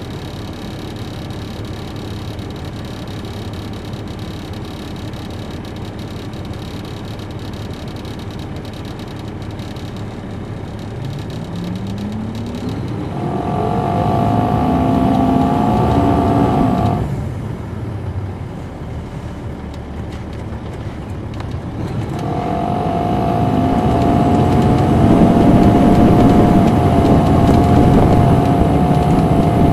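Caterpillar C13 diesel engine of a 2007 MCI D4500CL coach, heard on board: it runs steady and low for about ten seconds, then revs up with a rising pitch and pulls hard with a high whine over it. About seventeen seconds in it eases off sharply, then builds again from about twenty-two seconds in, louder than before.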